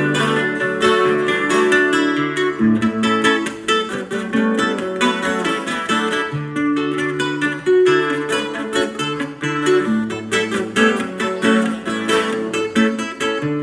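Acoustic guitar strummed in an instrumental passage between sung verses, in a quick, steady rhythm over a moving bass line.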